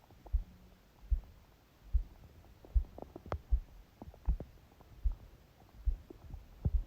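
Sleeping person's heartbeat picked up through the belly by a phone pressed onto the abdomen, a steady low beat a little under once a second. Small popping gurgles from the stomach and intestines come between the beats, most around the middle and near the end.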